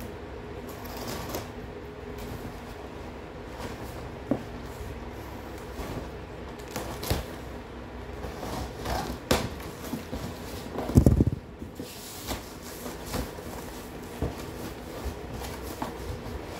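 Cardboard box being opened by hand: packing tape picked at and torn, flaps pulled open and the cardboard scraping and rustling in short, scattered clicks and scrapes. A louder bump and rustle about eleven seconds in as a hand reaches into the box.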